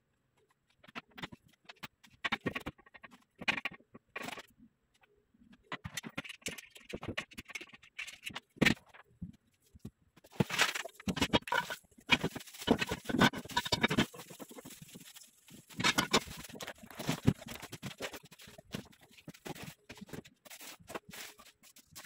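Metal bed-frame parts being unpacked by hand: plastic wrapping crinkling, cardboard scraping, and irregular knocks as the rails are lifted out and set down, busiest about halfway through.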